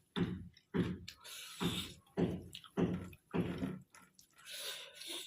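Close-up wet eating noises: chewing and lip smacking over mouthfuls of maize rice and stinging-nettle greens, in short separate bursts about two a second.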